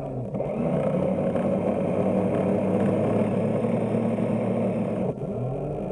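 Drive motor of a radio-controlled model push tug, heard from on board, running at a steady pitch. About five seconds in it briefly drops off, then its pitch swells back up and falls again.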